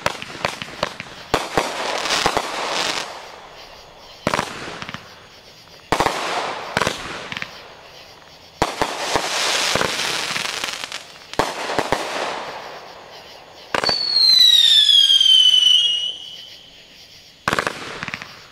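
Legend Fireworks 'Bad Ass' 500-gram consumer cake firing: sharp launch thumps every second or two, each followed by the crackle of its bursts fading away. Near the end one shot gives a loud falling whistle lasting about two seconds.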